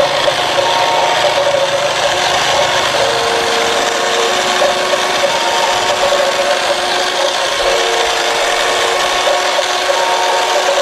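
Remote-control toy cement mixer truck driving along a concrete path: a steady, rasping whir from its motor, gears and wheels, with faint tones that come and go every few seconds.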